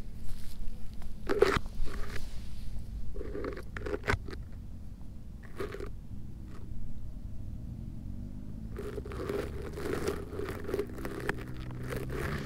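Dry grass crunching and rustling in short, irregular bursts close to the microphone, as a person moves through it and strokes a cat lying in it. The rustling gets denser in the second half, over a steady low hum, and a rising tone comes in near the end.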